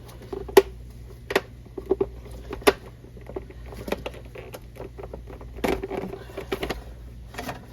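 Sharp plastic clicks and knocks from the battery trap door of a Tripp Lite Smart LCD 1500 UPS being handled and worked loose, several at irregular intervals.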